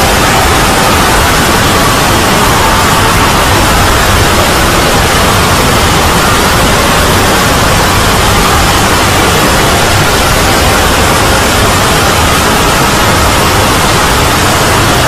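Loud, steady static-like noise with no words or tune standing out, the sound of a great many video soundtracks layered and played at once.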